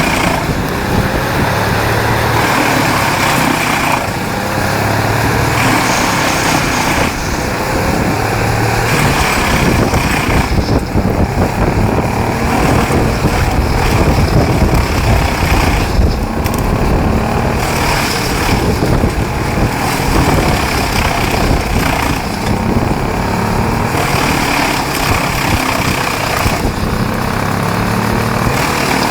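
Large wood chipper running under load: a steady engine hum under loud grinding noise of material being chipped, the sound shifting abruptly every few seconds.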